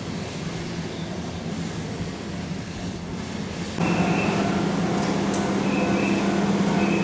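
Keihan electric train running at a station platform. About four seconds in the sound gets suddenly louder, and a steady low hum with short higher tones over it carries on from there.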